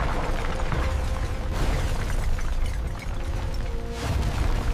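Rock crashing and tumbling as a hydraulic mining shovel's bucket tears into a rock face: a continuous heavy rumble with a deep low end. Background music plays underneath, and its held chord grows clearer near the end.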